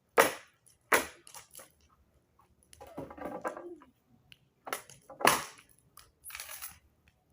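Sharp cracks and snaps, one just after the start, a cluster around a second in and two more around five seconds, with two longer crunching stretches between them.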